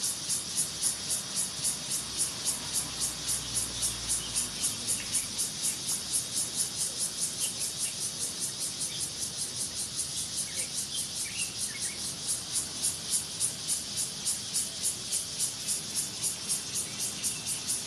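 Insects chirping in a steady, even rhythm of about three high-pitched pulses a second, with a few faint bird chirps about halfway through.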